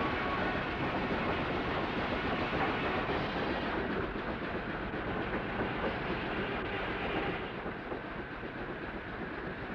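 Steam mill boiler-room machinery running: a steady, dense mechanical rumble, a little quieter from about three-quarters of the way through.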